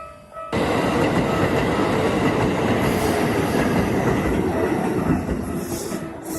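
A Keikyu Daishi Line electric train passing close by at a level crossing. The loud rush and clatter of its wheels comes in suddenly about half a second in, cutting over the crossing bell, and eases off near the end.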